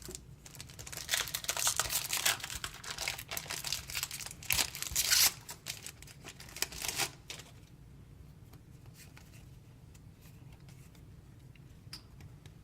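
Foil wrapper of a Pokémon TCG booster pack being torn open and crinkled, a run of crackly tearing and rustling that stops about seven seconds in.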